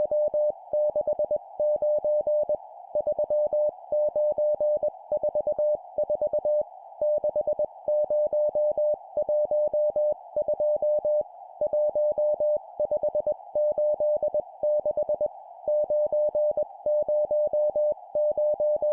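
Morse code (CW) sent at 20 words per minute: a single steady mid-pitched tone keyed on and off in dots and dashes. It comes in short groups with brief pauses between them, over a faint steady hiss.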